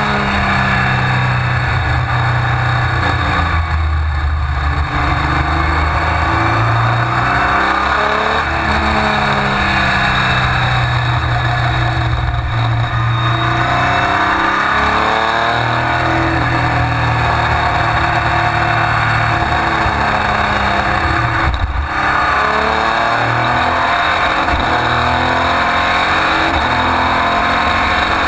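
Racing prototype's engine heard from inside the cockpit at speed, revving up through the gears over and over. The engine note falls away briefly three times, about four, twelve and twenty-one seconds in.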